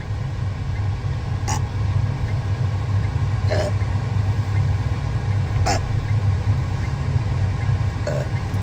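A girl makes four brief throat sounds, evenly spaced about two seconds apart, over the car's steady low rumble heard inside the cabin.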